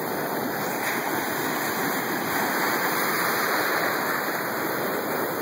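Ocean surf washing through the shallows: a steady rush of breaking waves and foam.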